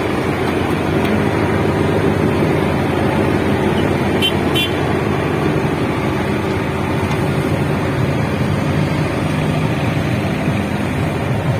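A moving car running, engine and road noise steady, with two short high beeps about four seconds in.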